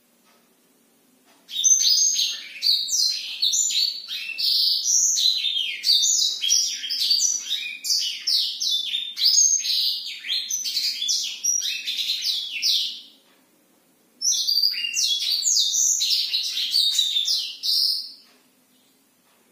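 Black-throated canary (blackthroat) singing a long, fast, rolling song of high chirps and trills. One bout of about eleven seconds is followed by a pause of about a second and then a shorter bout of about four seconds.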